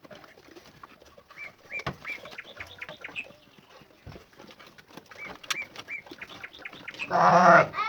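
Small birds chirping in short, scattered calls among faint clicks, with a loud, short cry about seven seconds in.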